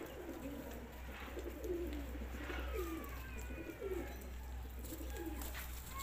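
Domestic pigeons cooing: a string of low coos, each note curving down in pitch, about one a second.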